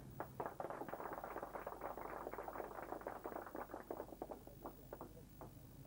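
Audience applauding: a quick run of clapping that builds within the first second, holds steady, then thins to a few scattered claps near the end.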